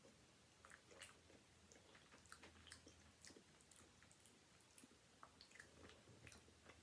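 Faint chewing of a mouthful of soft jelly-filled donut: scattered small, irregular mouth clicks and smacks.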